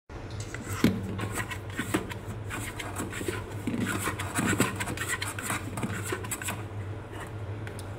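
Bread dough with some rye flour being kneaded by hand in a stainless steel bowl: irregular scraping, rubbing and squelching of the dough and fingers against the steel, with many short scrapes and clicks.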